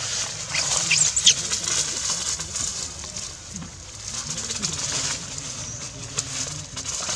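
Dry leaf litter rustling and crackling as young macaques scamper and scuffle over it, with a few short high chirps about a second in.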